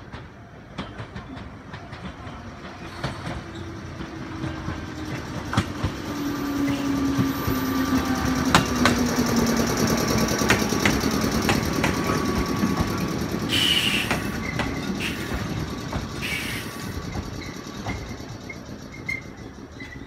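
Two-car JR 105 series electric train arriving and slowing to a stop: wheels clacking over the rail joints, growing louder as it draws alongside, with a low hum that falls in pitch as it slows. Two short hisses of air come after the middle.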